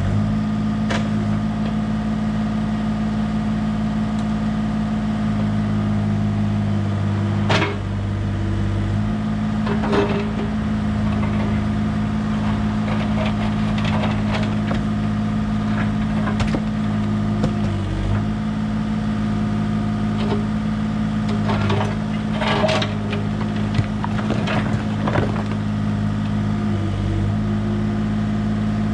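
Bobcat E32 mini excavator's diesel engine running steadily under hydraulic load, its note dipping briefly a couple of times as the arm works. Over it, scattered sharp knocks and clatter as the steel bucket pries stones out of a stone retaining wall and they fall.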